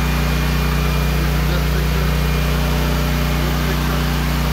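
Honda-powered PWHG 6901 portable generator running steadily on natural gas while carrying a whole-house load: a loud, continuous engine drone with a low hum.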